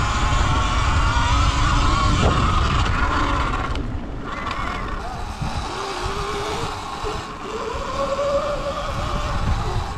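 Sur-Ron electric dirt bike ridden fast down a dirt trail. The motor whines and rises in pitch as it speeds up in the second half, over heavy wind rumble on the microphone and tyre noise.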